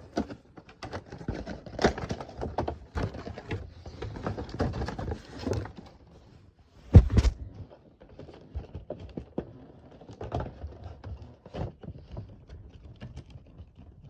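Handling noises from unboxing a diecast model car: rustling of the packaging with scattered clicks and knocks, and one loud thump about seven seconds in.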